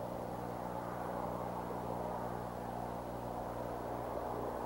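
Steady low rushing background noise with a faint steady electrical hum, picked up by an outdoor nest camera's microphone.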